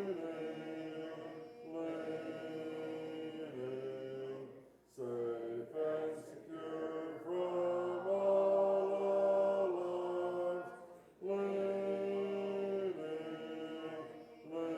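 A church congregation singing a hymn a cappella, without instruments, in long held notes with brief breaks between phrases.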